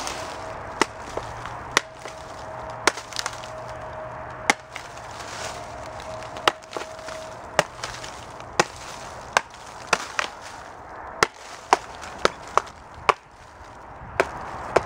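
Hatchet chopping into a rotten pine stump: about eighteen sharp, uneven strikes, coming faster in the second half.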